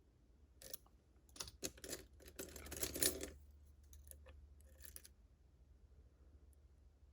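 Metal lock picks clicking and scraping against the pins inside a Ruko 600 lock cylinder during single-pin picking. Scattered clicks build to a dense rattling scrape about three seconds in, then thin out to a few last clicks.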